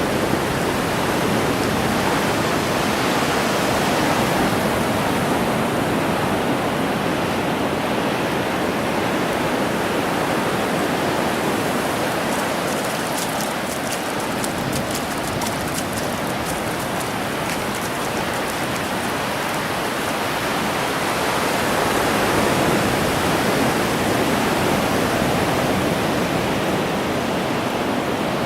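Ocean surf breaking and washing up the beach: a steady rushing noise that swells and eases slowly.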